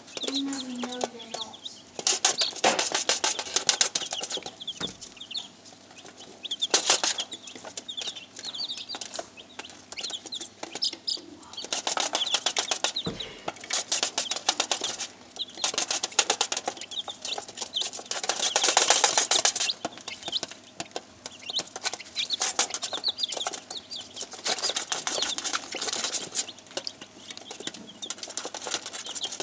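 Week-old chicks' claws tapping and scratching on an upturned aluminium foil tray: dense, fast metallic clicking that comes in louder bouts as they move about, with short high chick peeps mixed in.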